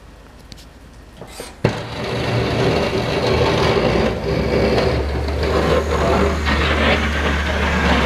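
Pickup truck with a snowplow blade working close by: a steady low engine drone mixed with a scraping, noisy rush as the blade pushes snow on the driveway. The sound is faint at first, then comes in loud and suddenly after a sharp click about one and a half seconds in.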